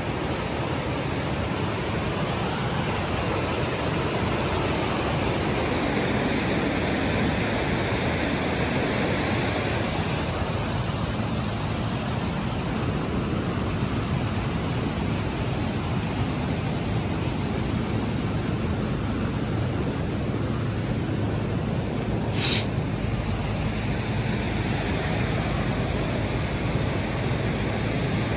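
Steady rushing of a creek in flood with snowmelt water. One short sharp knock comes about three-quarters of the way through.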